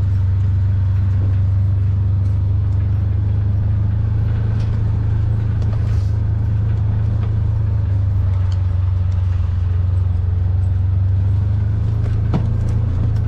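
A motor vehicle's engine running steadily: a constant low drone with no change in pitch, with a few faint clicks and knocks over it.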